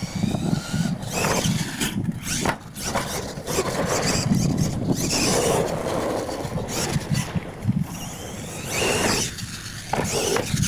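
Radio-controlled monster truck driving on dirt, its motor and drivetrain whining as it revs up and down, with the tyres churning the dirt.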